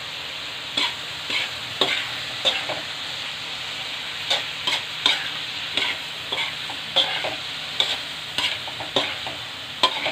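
Chicken gizzards stir-frying in a wok: a steady sizzle with a spatula scraping and clacking against the pan about twice a second.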